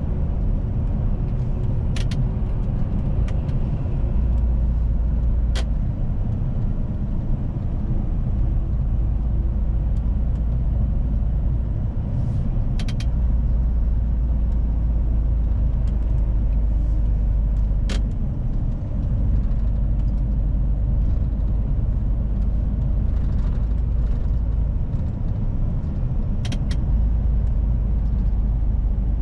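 Mercedes-Benz Arocs truck's six-cylinder diesel engine and road rumble heard from the cab while driving, steady and low, with the engine note shifting slightly. Several short, sharp clicks or rattles come through at scattered moments.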